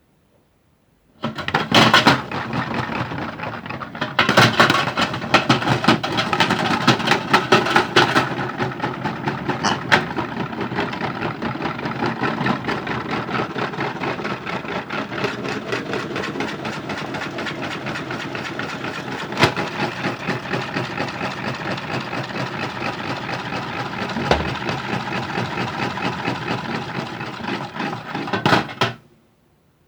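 Modified toy washing machine running, with hard objects clattering and rattling around inside its spinning drum. It starts about a second in and stops suddenly near the end.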